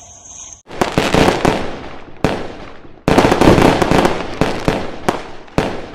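Fireworks going off: sharp cracks and dense crackling starting just under a second in, with the loudest burst about three seconds in, trailing off into scattered cracks.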